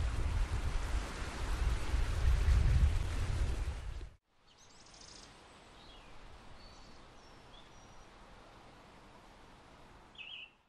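Wind rumbling on the microphone over the rush of water from a boat on the river, cutting off suddenly about four seconds in. Then faint outdoor ambience with a few short bird chirps, one clearer near the end.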